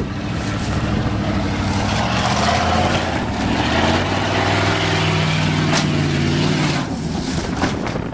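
1988 Chevrolet pickup's engine pulling under load as the truck climbs a steep hill, its note rising and falling with the throttle.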